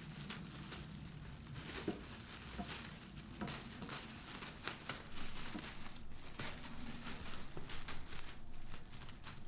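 Plastic sleeve crinkling and rustling as it is cut with scissors and pulled open, with irregular small crackles that get louder about halfway through.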